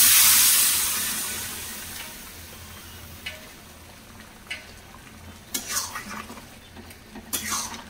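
Boiled peas and potatoes, with their hot cooking water, hit a hot kadai of fried masala: a sudden loud sizzle that dies away over about two seconds. A metal spatula then stirs and scrapes against the pan a few times.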